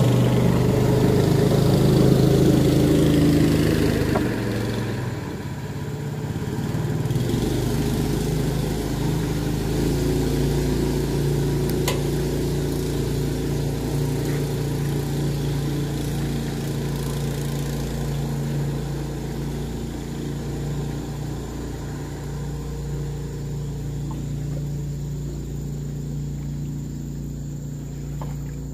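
A small engine running steadily, loudest for the first four seconds, then settling into an even run that slowly grows fainter.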